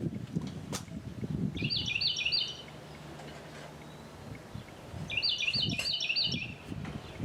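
A songbird sings two short phrases of quick, repeated rising notes, about two seconds in and again about five seconds in. Low, uneven clunks and rustling of handling run beneath it.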